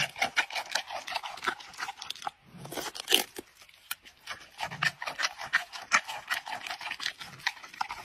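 Giant panda biting and chewing a chunk of raw pumpkin: rapid, irregular crunching, with a couple of short pauses.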